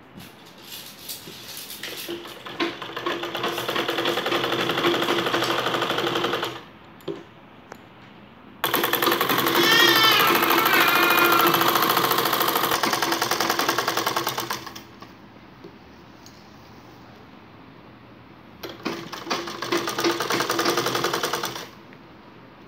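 Domestic sewing machine stitching ric-rac lace onto a cotton hem, in three runs with short pauses between. The first run gradually speeds up. The second starts abruptly and is the loudest and fastest. The third is short.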